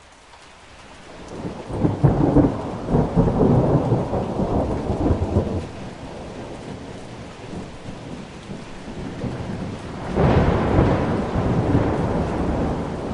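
Thunder rumbling over steady rain during a storm. A long roll builds from about a second in and dies down after about five seconds, then a second, sharper clap comes about ten seconds in and rumbles on.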